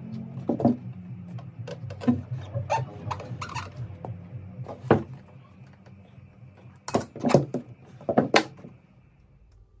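Short knocks and clicks of a plastic car centre console being turned and set down on a worktable while its suede covering is pressed down with a small hand roller, the loudest cluster of knocks near the end. A steady low hum runs underneath and fades out just before the end.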